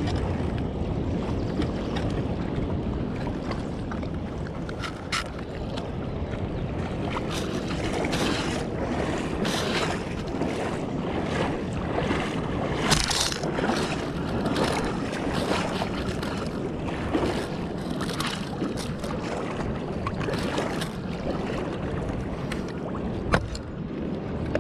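Steady rush of river water with wind buffeting the microphone, broken by a few short, sharp knocks.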